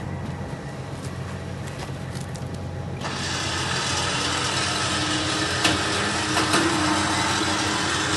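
Pickup truck engine idling steadily, getting louder and with more hiss from about three seconds in, with a few light clicks.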